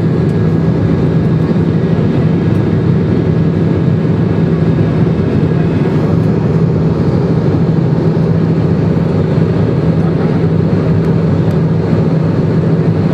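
Steady cabin noise of an Airbus A320 airliner climbing after takeoff: its jet engines and rushing air heard from a window seat as a loud, unbroken drone with a constant low hum.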